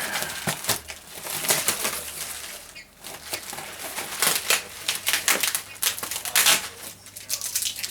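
Packing paper and cardboard rustling and crumpling in irregular bursts as the packing is handled and pulled out of a box.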